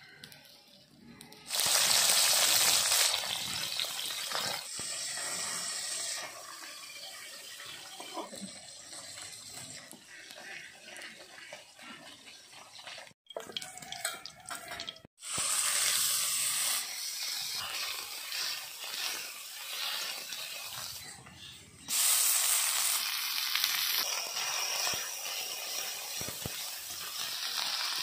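Hot oil in an aluminium kadai sizzling, flaring up into a loud hiss three times as ingredients are dropped in, then settling to a steady frying sizzle.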